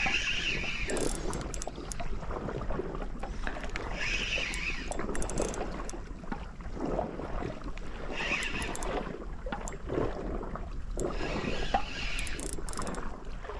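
Spinning reel being cranked against a hooked fish, with short spells of the reel's drag giving line about every four seconds, over steady wind and sea noise.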